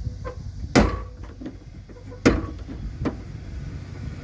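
Two sharp snaps about a second and a half apart, then a fainter click: the stiff retaining clips on a Ford F250 Super Duty rear door latch assembly being pried off so the latch rods pop free.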